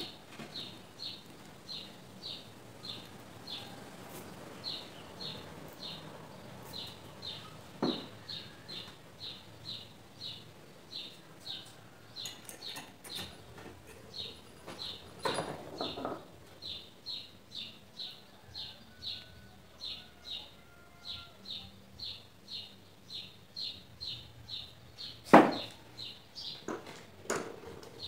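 Short high chirps repeating steadily, about two a second. A few knocks come from small fan-motor parts being handled, the loudest about three-quarters of the way in.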